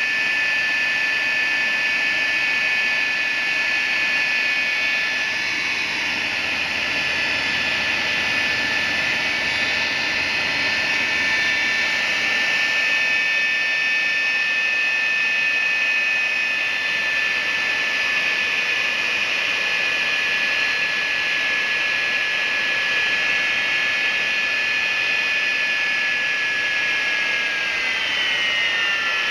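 Converted GE J79 turbojet running at steady power: a rush of air with several steady high compressor whine tones. Near the end the whine starts to slide down in pitch as the engine slows.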